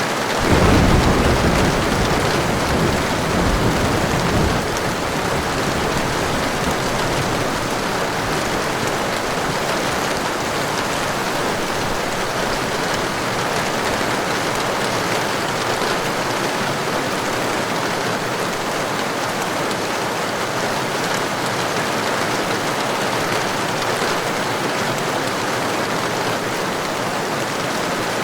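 Heavy rain falling steadily, with a low roll of thunder in the first few seconds that fades out.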